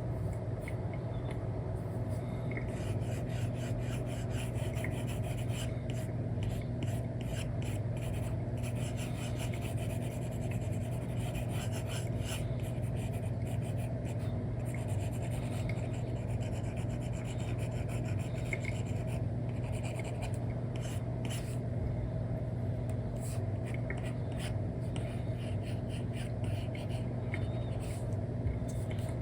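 Apple Pencil nib rubbing and scratching across a paper-like screen protector on an iPad in many short coloring strokes, over a steady low background hum.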